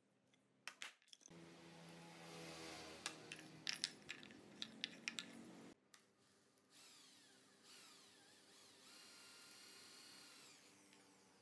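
Faint corded electric drill running as it bores screw holes through a steel L bracket, its pitch sliding and then holding steady as the bit cuts. A few sharp taps about a second in.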